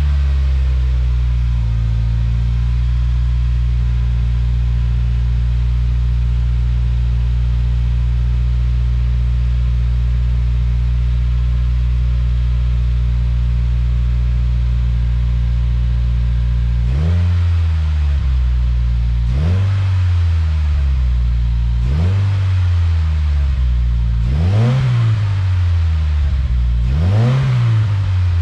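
2016 Subaru WRX's turbocharged flat-four idling through a stock header, Cobb catted J-pipe and Subaru STI/SPT cat-back exhaust, the idle settling down in the first couple of seconds after starting. About two-thirds of the way through it is revved in quick blips, two to about 3,000 rpm and then two higher ones to about 4,000 rpm, each falling back to idle.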